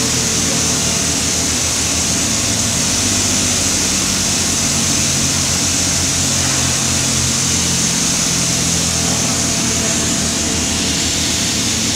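Steady drill-floor machinery noise on an offshore drilling rig: a low, engine-like hum with a constant high hiss.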